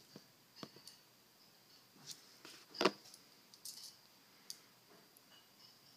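British coins clinking and clicking against each other and a hard surface as they are handled and sorted, a scattering of small clinks with one sharper click near the middle.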